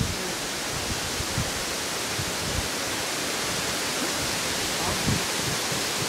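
Steady outdoor hiss with a few short, low thumps scattered through it, the clearest about a second and a half in and about five seconds in.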